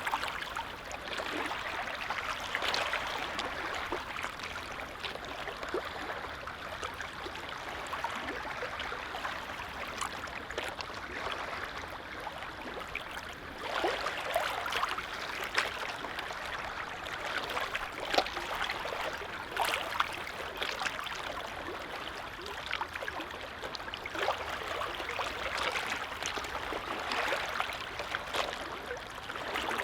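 Small lake waves lapping and splashing at the water's edge, a continuous irregular patter with occasional slightly louder splashes.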